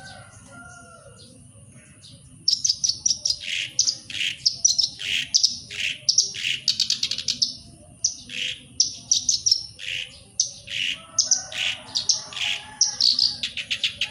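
Black-browed reed warbler singing: after a quiet start of about two and a half seconds, a long run of phrases that alternate quick rapid-fire high notes with lower notes sliding downward, with a short break near the middle.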